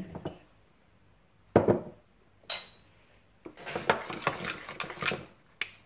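A metal spoon in a bowl: a sharp knock about a second and a half in, a single ringing clink, then about two seconds of quick clicking and scraping as cornflour is stirred into a thin liquid sauce.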